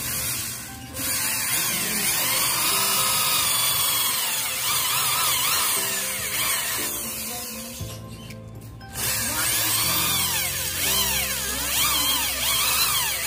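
Handheld electric drill boring holes in a wooden strip, its motor whine rising and falling in pitch as the bit bites and eases. It stops briefly about two-thirds of the way through and starts again. Background music plays underneath.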